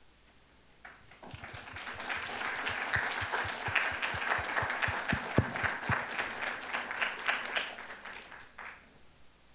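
Audience applauding, starting about a second in, swelling, then dying away near the end.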